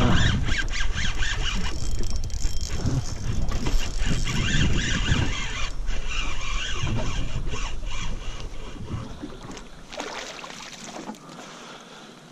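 Spinning reel being cranked against a hooked fish, with a high wavering whine over heavy wind buffeting the microphone; the wind eases off about ten seconds in.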